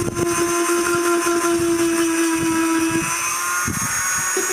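Dremel rotary tool sanding the flesh side of a dried sheep pelt: a steady high motor whine over a scratchy rasp of the abrasive on the hide. The whine cuts out briefly a little past three and a half seconds in, then starts up again.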